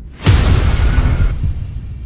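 Loud burst of harsh, distorted noise with heavy bass, starting a moment in and thinning out near the end: one beat of a repeating soundtrack loop that comes round about every two seconds.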